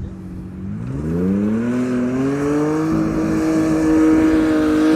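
A 4x4's engine revs up under load about a second in and is then held at high revs, the pitch steady, as the vehicle powers up a sand dune.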